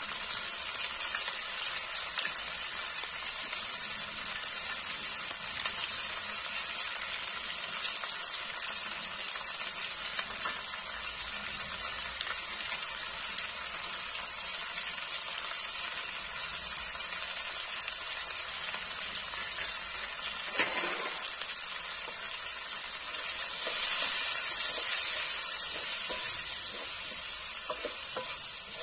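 Green mango slices sizzling steadily in hot oil in a wok, the sizzle swelling louder for a couple of seconds late on. Near the end a wooden spatula stirs the pieces with light scraping clicks.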